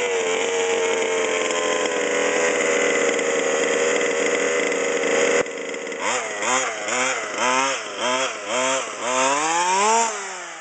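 Small two-stroke gas engine of a 1/5-scale Redcat rally RC car, running at a steady high pitch for about five seconds until it changes abruptly. It is then blipped in quick, evenly spaced revs, about two a second, each rising and falling, with a longer rising rev near the end as the car pulls away.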